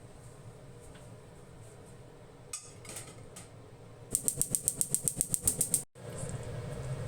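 A kitchen utensil clattering quickly and evenly against a dish, about nine light strikes a second for nearly two seconds, then cutting off abruptly. A single click comes earlier, and a steady low hum follows.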